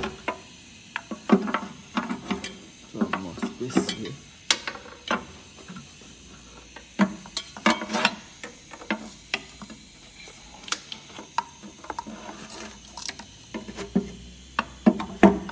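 Irregular metal clicks, knocks and short scrapes from hand work on the underside of a Ford F-150's V8 engine, as parts and a cable are shifted to work the oil pan down. The sounds thin out for a few seconds after the middle.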